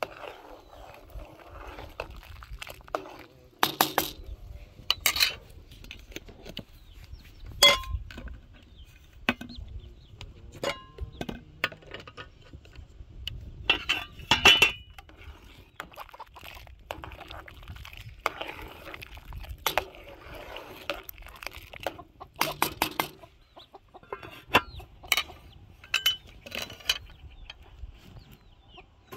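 Scattered sharp clinks and knocks at irregular intervals, with short bird calls between them.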